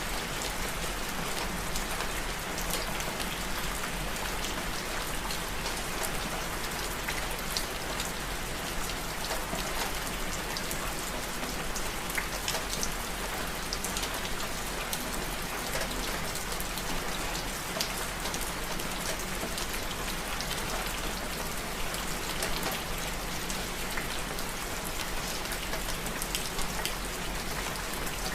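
Steady rain falling on a hard surface, with many separate drops ticking over a constant hiss.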